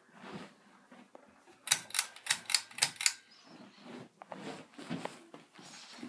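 A quick run of about eight sharp clicks, about five a second, lasting about a second and a half.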